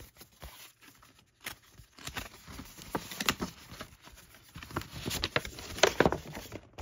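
A thick paper poster being handled and unfolded, with scattered rustles, taps and crinkles of paper that get busier in the second half.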